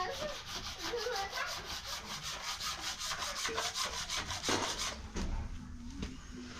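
Rapid, rhythmic scraping or rubbing of a hand tool or material, about five strokes a second, fading out after about four seconds. Faint voices in the background.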